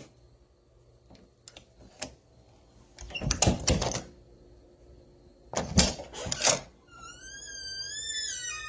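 Old wooden door: a few light latch clicks, then two loud rattling clatters of the door being worked and banged. Near the end the hinges give a long, high, wavering creak.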